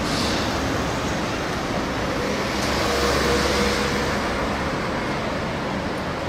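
Street traffic: cars and a small van driving past, a steady wash of engine and tyre noise that swells about three seconds in and then eases off.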